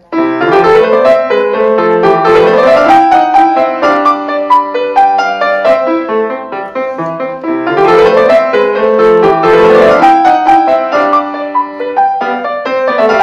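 Grand piano played solo: a short teaching-repertoire piece in two similar phrases, each opening with rising broken chords. It starts abruptly, and the last notes ring near the end.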